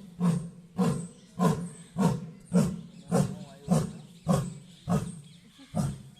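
Tiger calling: a regular series of short, deep roaring calls, about two a second, growing weaker near the end.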